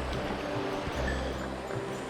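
Background music: sustained notes over a steady bass line.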